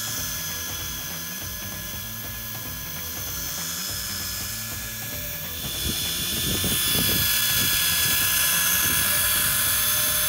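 Daiwa Tanacom 1000 electric fishing reel running with a steady mechanical whine, growing louder about six seconds in.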